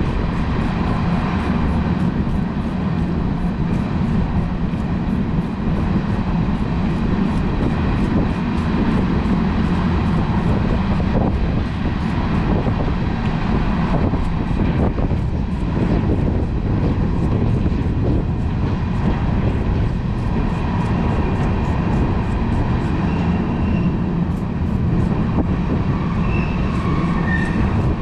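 A steady, low rumbling noise with no distinct events, and a few faint high chirps near the end.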